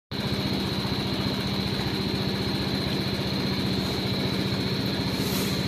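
Aprilia Storm 125 scooter's single-cylinder engine idling steadily, with a faint high whine above the hum.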